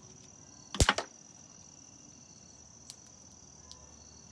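An old CD being broken by hand into shards: a quick run of sharp plastic cracks about a second in, then a couple of faint clicks. Crickets chirp steadily in the background.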